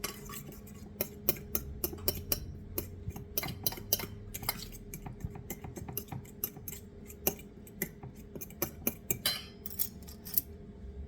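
A utensil clicking and tapping quickly against a bowl while a vinaigrette of lemon, vinegar, mustard and oil is mixed; the taps stop about ten seconds in. A faint steady hum lies underneath.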